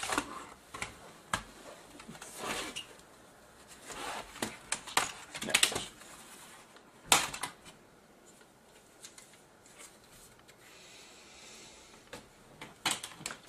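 Irregular plastic clicks, snaps and knocks as the Dell Inspiron 6400's palm-rest cover is pried off its clips with a screwdriver and lifted away, with the sharpest knock about seven seconds in.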